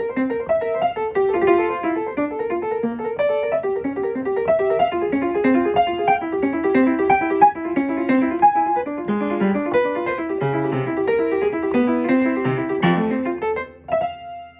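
Background piano music playing a quick run of notes, ending on a held chord that rings out and fades near the end.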